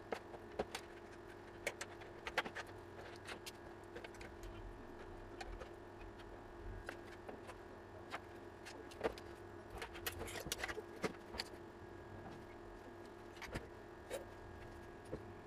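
Scattered clicks, clinks and knocks of small metal parts and tools being handled, the kind heard while taking apart an inverter's casing, over a steady faint hum.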